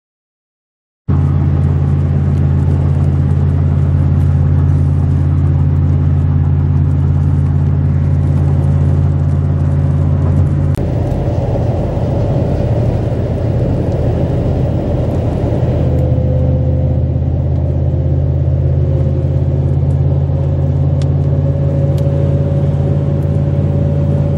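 Car cabin noise while driving on a highway: a loud, steady low rumble of engine and road. It starts about a second in and grows rougher a little before halfway.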